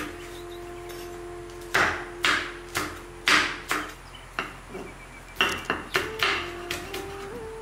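Kitchen knife chopping shallots on a wooden cutting board: a run of sharp, irregular knocks as the blade strikes the wood, the first about a second and a half in.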